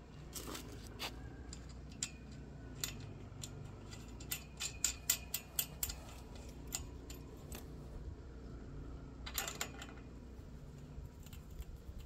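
Scattered small metallic clicks and taps from handling the bolt and nut of a steel pipe clamp on a galvanized pipe, with a quick run of clicks about four to six seconds in and a short cluster near nine and a half seconds.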